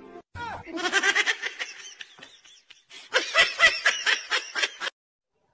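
A person laughing in two bursts, the second a quick, even run of short 'ha' pulses that stops about a second before the end.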